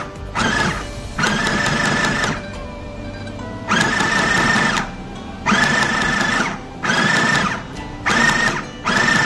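Mini portable electric sewing machine stitching in a series of start-stop runs, seven in all. The longer runs last about a second and the others are brief, each with a steady high whine from the small motor.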